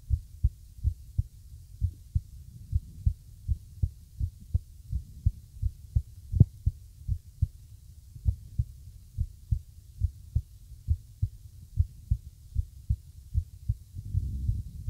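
Human heartbeat recorded close up: a run of short low thumps, roughly two a second, which the uploader calls an irregular heartbeat. A brief low rumble near the end.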